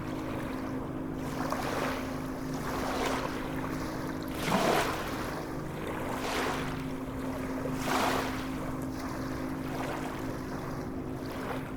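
Sea water splashing and washing in regular swells about every one and a half seconds, the biggest about four and a half seconds in, over a steady low hum.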